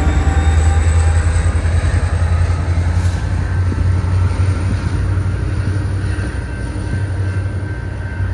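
VIA Rail F40PH diesel locomotives with EMD two-stroke engines running with a steady low hum as the passenger train pulls away, slowly fading.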